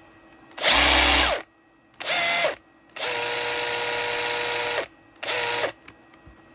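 Makita HR008G 40V brushless cordless rotary hammer run without load in four trigger pulls: a short loud high-pitched burst about half a second in, then a brief lower one, a steady run of nearly two seconds, and another brief one. The motor whine sits at a different pitch in each run, showing it being run at different speeds, and drops in pitch as the trigger is released.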